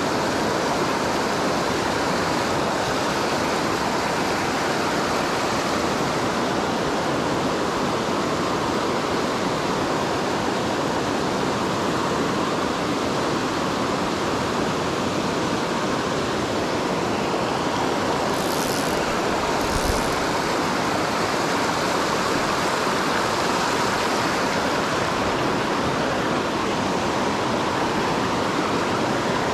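Mountain trout stream rushing over rapids and boulders close by, a steady full rush of whitewater. A couple of faint clicks and a brief low knock come about two-thirds of the way through.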